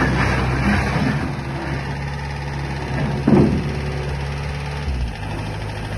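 S160 skid-steer loader's diesel engine running steadily, with a short clank about three seconds in and a change in the engine note near the end.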